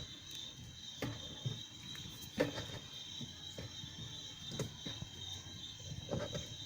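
A hand tool tightening the mounting bolt of a washing machine's spin-dryer motor: light metallic clicks and knocks, roughly one a second.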